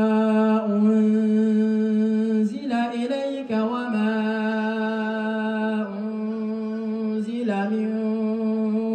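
A man's voice reciting the Quran in melodic tajweed style, amplified through a handheld microphone. He holds long, steady drawn-out notes, with an ornamented wavering turn in pitch about three seconds in and a shorter one near the end.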